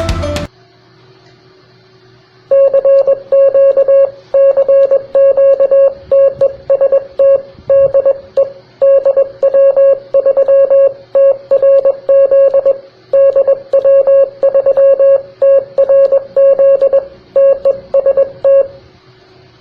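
Morse code (CW) sent as a single steady beeping tone keyed on and off in short dots and longer dashes, starting about two and a half seconds in and stopping shortly before the end, over a faint steady hum and hiss.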